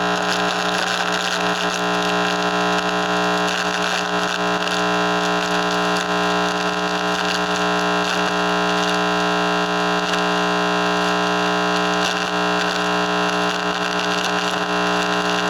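Loud, steady electronic buzz and hiss from a microwave receiver's audio output, its receiving element in contact with metal. It is a dense drone of several fixed tones under static, switched on abruptly just before this point.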